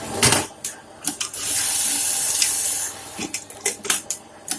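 Brother industrial buttonhole sewing machine running through a cycle. A few sharp clicks come first, then about a second and a half of steady, hissing high-speed stitching, then more clicks and knocks near the end.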